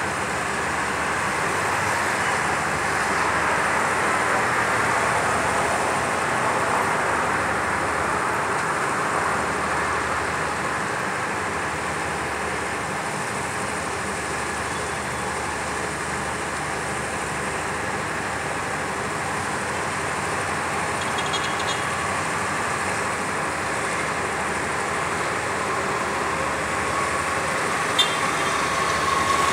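Steady hum of distant road traffic, swelling slightly a few seconds in, with a short click near the end.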